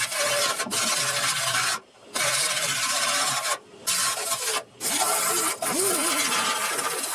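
Power grinder running against car-body sheet steel, grinding off rust. The loud, steady grinding noise cuts out abruptly three times for a fraction of a second.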